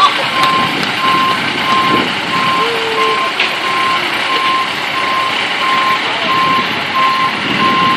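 Reverse-warning beeper on a semi tractor-trailer backing up, beeping steadily about one and a half times a second over the truck's running diesel engine.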